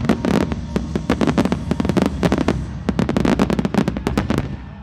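Rapid barrage of aerial firework shells bursting: dozens of sharp bangs in quick, overlapping succession that stop suddenly about four and a half seconds in.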